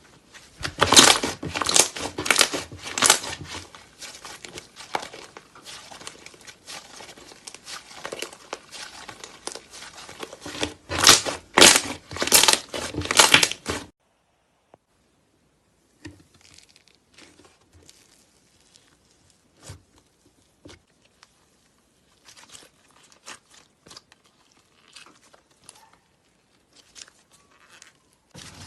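Slime being squeezed and poked by hand, with dense crackling and popping for about the first half. After a short silence come fainter, sparser crackles.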